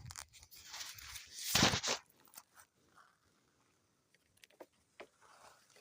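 Rustling and crunching handling noise, loudest about a second and a half in, followed by a few faint clicks.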